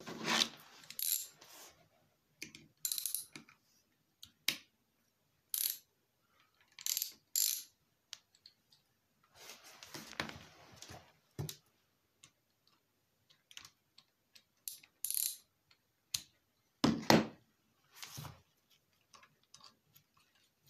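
Hand tools and small metal engine parts being handled on a wooden workbench: scattered, irregular metallic clinks and clanks as tools are picked up, set down and used on a motorcycle engine, with a longer handling noise about ten seconds in and a heavier knock about seventeen seconds in.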